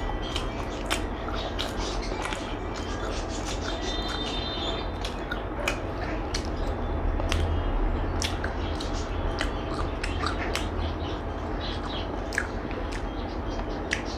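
A person chewing food close to the microphone, with frequent small clicks and smacks, over a steady low hum.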